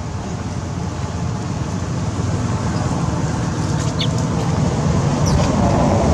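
Steady low outdoor rumble, growing gradually louder, with a couple of brief faint high squeaks about four and five seconds in.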